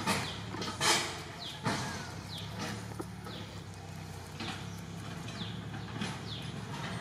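Outdoor forest ambience: short, high, falling bird chirps repeating about once a second over a steady low rumble, with three sharp rustling noises in the first two seconds, the loudest about a second in.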